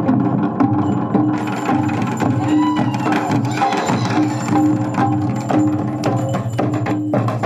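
Santal tumdak' barrel drums and tamak' kettle drums beaten together in a fast, steady dance rhythm.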